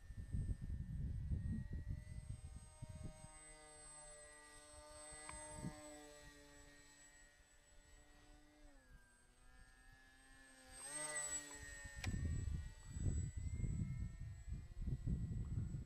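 RC flying wing's motor and propeller buzzing in flight, its pitch drifting as it flies, with a quick rise and fall in pitch as it passes close about eleven seconds in. Wind rumbles on the microphone at the start and again near the end, louder than the plane.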